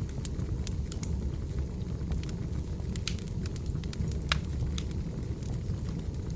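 Wood fire in a fireplace crackling: irregular sharp pops and snaps over a steady low rumble, with one louder pop about four seconds in.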